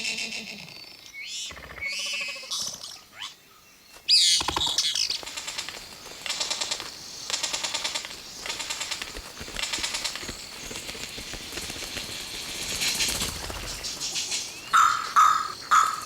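Male Vogelkop bowerbird singing his courtship song: a varied sequence of sweeping calls and fast, buzzy pulsed notes, with a string of short, loud repeated notes near the end.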